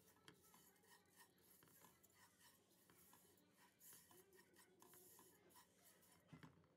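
Faint scraping and rustling of a silicone spatula stirring dry vermicelli in a nonstick pot as it is toasted, with a soft bump near the end.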